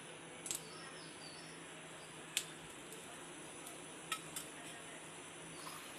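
A few light clinks of a steel spoon against steel utensils while oil is spooned onto a hot tawa: four short clicks, the clearest a little over two seconds in, over a faint steady hiss.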